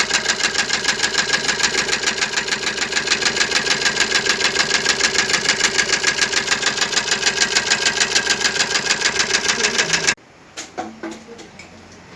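Maruti Suzuki Ertiga diesel engine running with a rhythmic clatter at about five beats a second, an internal noise from the top end that the mechanic traces to the cam or tappet rocker. It cuts off sharply about ten seconds in, followed by a few light knocks.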